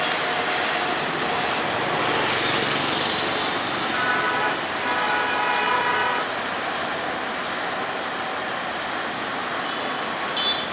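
Diesel-electric locomotive hauling a passenger train slowly past, engine running and coaches rolling over the rails. A horn sounds for about two seconds near the middle.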